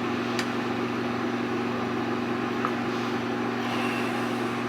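Steady machine hum in the room, a constant low drone with an even hiss over it, as from a running fan or air conditioner.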